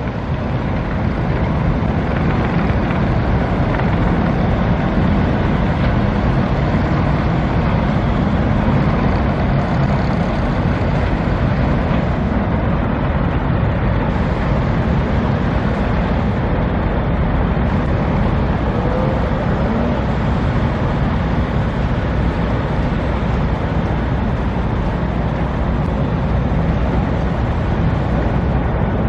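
Steady roar of road traffic, even and unbroken throughout.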